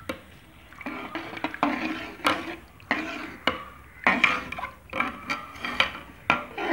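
A metal spoon stirring macaroni in water in a metal pot, knocking against the pot about twice a second, with the water sloshing between knocks.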